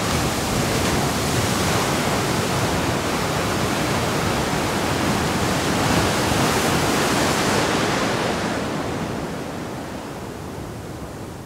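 Steady rushing of wind and sea surf, an even noise without pauses, fading over the last few seconds.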